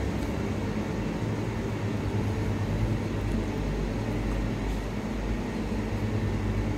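Steady low mechanical hum of running refrigeration equipment, with a light hiss over it.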